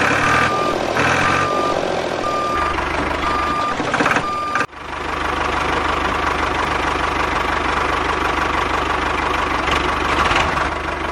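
An RC construction vehicle's reversing alarm beeping repeatedly, about one and a half beeps a second, over engine noise. About halfway through the sound cuts off sharply and a steady engine-like drone with a low hum takes over.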